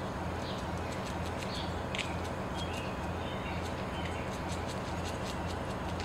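Small birds chirping in short, scattered calls over a steady outdoor rush, with faint quick ticks.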